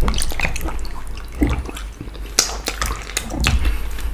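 Wet, sticky eating sounds from fufu and slimy ogbono-okra soup eaten by hand: a quick run of smacks, clicks and squelches from mouths, fingers and food.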